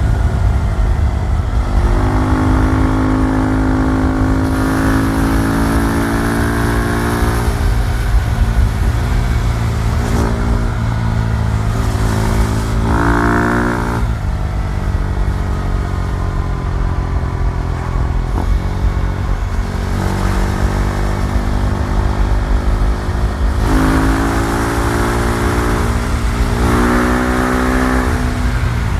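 KTM Duke 390's single-cylinder four-stroke engine accelerating in several pulls, its pitch rising through each gear and dropping at the shifts, over a steady low rumble.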